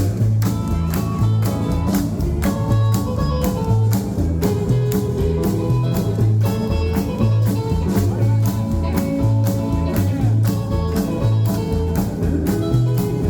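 Live rock and roll band playing an instrumental break: guitar, bass and drums with a steady beat.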